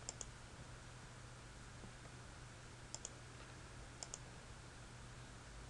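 Computer mouse clicking: three quick pairs of clicks, one right at the start, one about three seconds in and one about a second later, over a faint steady low hum.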